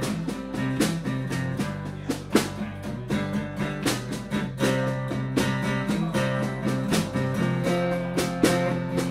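Live band playing an instrumental passage with no singing: guitar notes over a steady drum beat.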